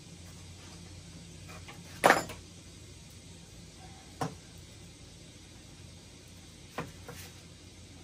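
Sharp metallic clicks of pliers crimping wire on a mesh strainer and being laid on a workbench: one loud click about two seconds in, then two fainter ones, over a low steady hum.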